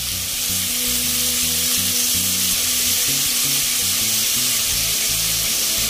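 Hot oil sizzling steadily in a frying pan under freshly added onion-tomato paste, fried potato wedges and vegetable stalks: an even frying hiss.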